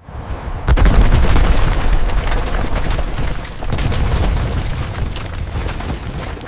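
Building-collapse explosion sound effect: a heavy blast about a second in, then a deep rumble full of cracking and crashing debris that slowly dies away toward the end.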